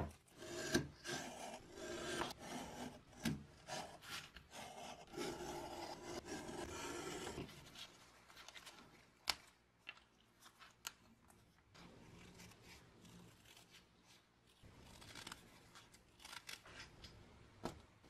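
Utility knife blade scraping and cutting through paper gasket material on a wooden board, with a run of scraping strokes and clicks for the first several seconds. After that come quieter rustles and light taps as the cut paper is handled.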